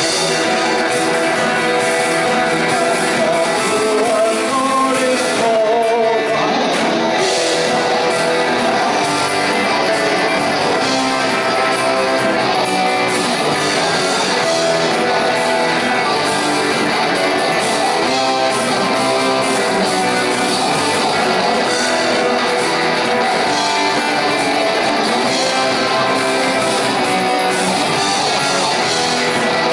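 Rock band playing live, with strummed guitars and some singing.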